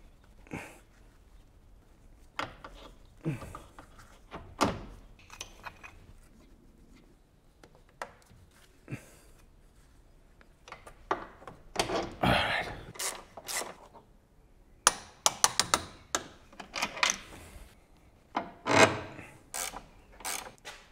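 Hand tools and metal suspension parts knocking, clicking and rubbing in irregular bursts as a new sway bar bushing and bracket are fitted and bolted up, with a quick run of sharp clicks about three-quarters of the way through.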